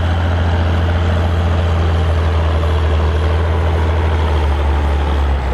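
Old farm tractor's diesel engine running steadily and loud, with a deep low hum; the engine note sinks slightly near the end.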